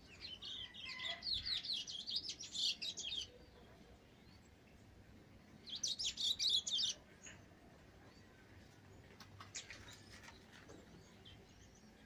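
Caged finch singing a rapid, high twittering warble in two bouts: one about three seconds long at the start and a shorter one of about a second near the middle.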